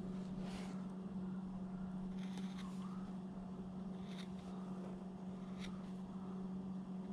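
A small 3 mm number 11 veiner gouge cutting short, crisp strokes into wood, a few faint scrapes spread through, over a steady low hum.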